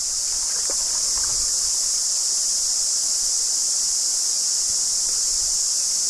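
Steady, high-pitched, unbroken drone of a chorus of cicadas.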